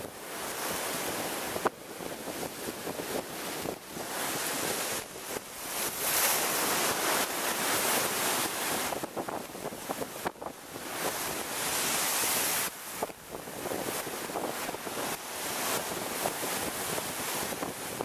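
Rough sea waves surging up a stepped concrete sea wall and crashing against it. The surf swells and falls, loudest about six to eight seconds in and again from about ten to twelve and a half seconds, where it drops off sharply.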